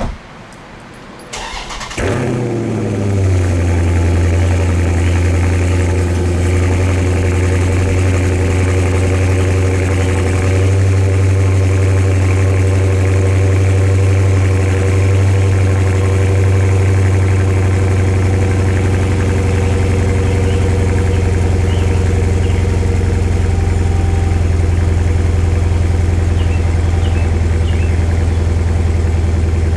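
2016 Dodge Challenger Scat Pack's 6.4-litre 392 HEMI V8 cold-started: a click, a brief crank, and the engine catches about two seconds in with a flare, then settles into a steady idle on a cold engine, heard at the exhaust.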